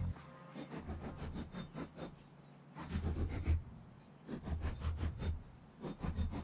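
Rubber concrete stamp mats being tamped and handled on fresh concrete: a series of soft irregular knocks and taps. A low rumble comes and goes underneath.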